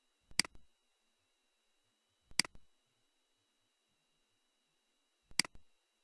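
Three separate clicks of a computer mouse button, each a quick press and release, spaced two to three seconds apart.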